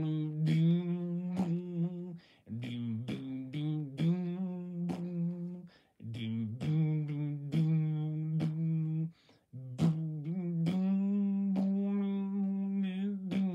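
A person's voice humming held notes at a few different pitches, broken by sharp mouth clicks and pops, beatbox-style. It comes in phrases of a few seconds with brief breaks between them.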